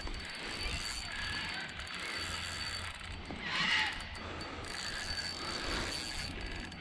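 Fishing reel ratcheting and whirring as a hooked carp is played in, with a brief louder rush of noise about halfway through.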